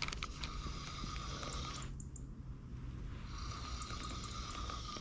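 Fixed-spool reel being wound in to bring in a hooked bream, a steady whir in two spells: one of about two seconds at the start, another from a little past three seconds.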